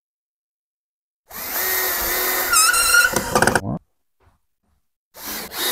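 Power drill driving a drywall screw into timber: the motor whines for about two and a half seconds, its pitch dipping as the screw bites, then stops.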